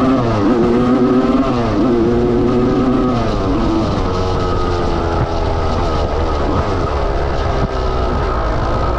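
1989 Honda CR250's two-stroke single-cylinder engine, fitted with a 310cc big-bore cylinder, running under load while riding. Its revs rise, hold and drop several times as the throttle is worked.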